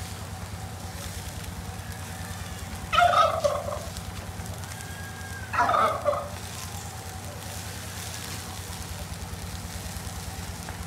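A domestic fowl calling loudly twice, about three seconds in and again about six seconds in, each call short and rough. A steady low hum runs underneath.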